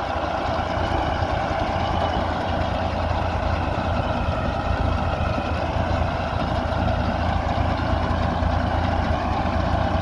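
Tractor engine running steadily as it pulls and drives a Sunking potato digger lifting potatoes from the soil, a continuous low mechanical hum.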